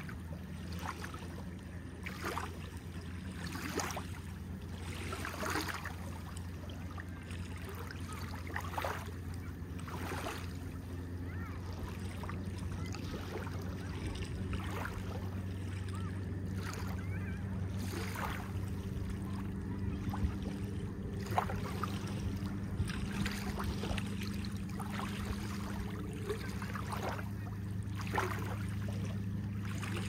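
Small waves lapping and splashing at the shore every second or two, over a steady low engine hum.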